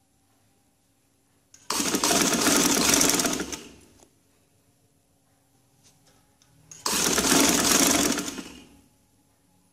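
Domestic sewing machine stitching piping onto a neckline in two runs of about two seconds each, with a pause of about three seconds between. Each run starts sharply and tails off as the machine slows to a stop.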